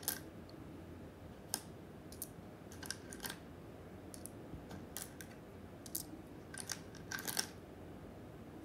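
Small wooden stamp-game tiles clicking and clacking as they are picked from their box compartment and dropped one by one into a palm: a string of light, irregular clicks.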